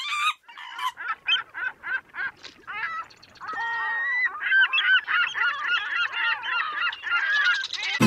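A clan of spotted hyenas giggling: many short, high calls that rise and fall in pitch, repeated rapidly and overlapping, thickening into a dense chorus from about three and a half seconds in. This is the excited giggling typical of hyenas crowding and competing at a kill.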